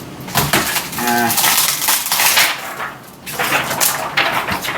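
A MacBook laptop being broken apart by hand: irregular cracking, crunching and clattering of its metal and plastic parts.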